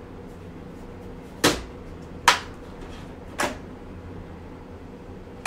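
Black plastic hard carrying case being unlatched and opened: three sharp plastic clicks, spread over about two seconds, over a faint steady hum.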